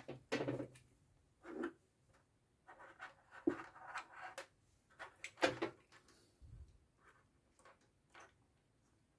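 Light clicks, knocks and scraping of plastic electrical parts handled on a desk: a push button with its contact blocks put down, wires moved, and a WAGO lever connector picked up. The sharpest clicks come near the start and about five and a half seconds in.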